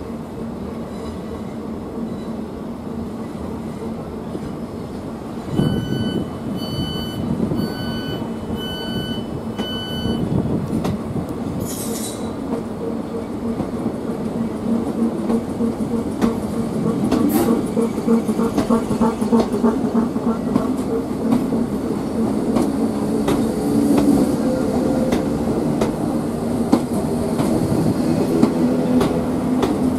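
Class 442 electric multiple unit standing at the platform with a steady hum. About six seconds in comes a run of five beeps about a second apart. The train then pulls away, its wheels clicking over rail joints with some squeal and a drone that slowly rises as it gathers speed.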